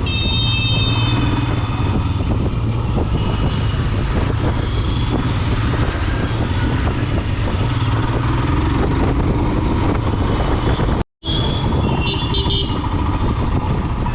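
Motorcycle engine running steadily while riding, with road and wind noise. A vehicle horn sounds for about a second and a half at the start, and a few short honks follow about twelve seconds in. The sound cuts out completely for a split second about eleven seconds in.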